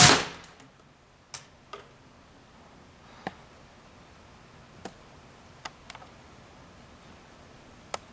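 A single shot from a Crosman 1377 multi-pump pellet pistol: one sharp crack with a short fading tail. It is followed by a few faint, irregular clicks and knocks of the gun being handled.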